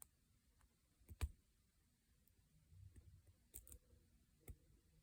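Faint, sharp clicks of a lock pick scrubbing across the pin tumblers inside a lock cylinder. The loudest click comes about a second in, with a few more later on.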